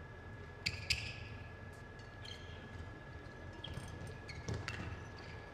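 A few sharp clicks and short squeaks from badminton players moving on the court between rallies, over a faint steady high hum.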